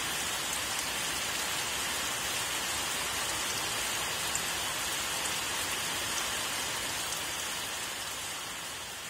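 Steady rain falling, an even, dense hiss with faint scattered drop ticks, which begins to fade out near the end.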